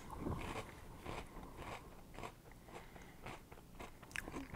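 A person chewing a mouthful of frosted oat cereal with marshmallows in milk: a run of faint, irregular little crunches.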